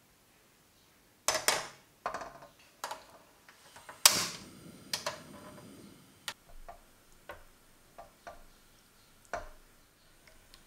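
Enamel saucepan set on the metal pan support of a portable gas stove and the burner lit: a series of sharp clacks and clicks, the loudest about four seconds in followed by a short rushing hiss as the gas catches, then lighter taps.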